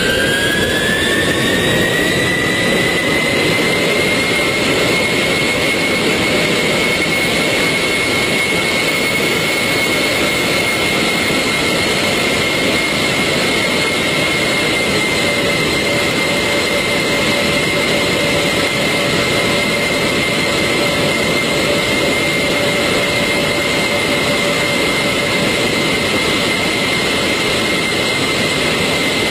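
An aeroplane's jet engines running loud. Their whine rises in pitch over the first few seconds, then holds steady over a constant rushing roar.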